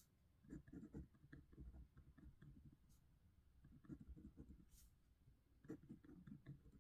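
Faint scratching of handwriting on paper, in short runs of strokes with brief pauses between them.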